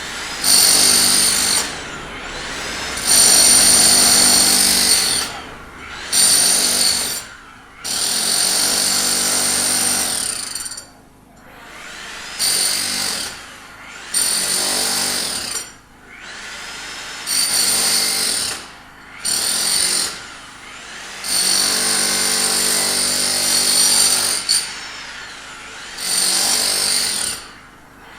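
Handheld electric power tool, like a drill, run in about ten short bursts of a steady high motor whine, each one to three seconds long, stopping and starting again with brief pauses, as a worker repairs a sidewalk.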